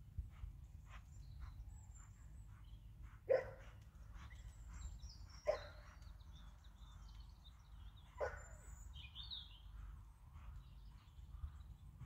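Outdoor ambience with animal calls: three short, sharp calls, two to three seconds apart, over high chirps of small birds and a steady low rumble.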